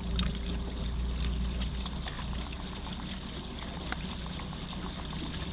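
A canoe under way, pushed by a 24-volt electric trolling motor: water laps and splashes against the hull in many small irregular ticks over a steady low hum.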